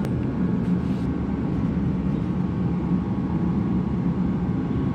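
Shop heater running, a steady rushing noise with a constant low hum.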